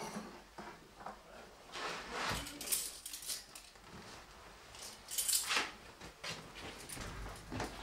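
Leather jacket rustling in several short bursts, with a few light metallic clinks, as a person adjusts it and gets up from a bench.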